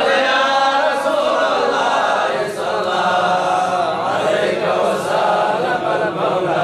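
A group of men chanting salawat, Arabic blessings on the Prophet Muhammad, many voices together in a steady sung chant.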